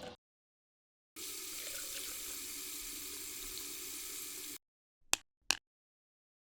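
Water running from a tap in a steady rush that starts and stops abruptly after about three and a half seconds, then two short clicks about half a second apart.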